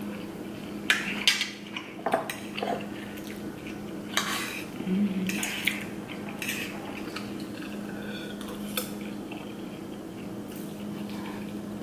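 Forks clinking and scraping against dinner plates during a meal, in scattered irregular taps.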